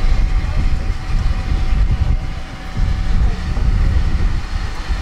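Airport apron noise beside a parked Boeing 737: a heavy, unsteady low rumble with a thin whine held on one note.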